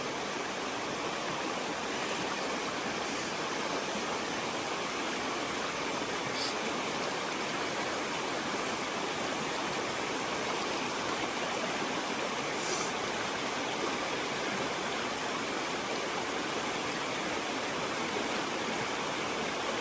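Creek water rushing steadily, with a few faint brief high-pitched sounds now and then.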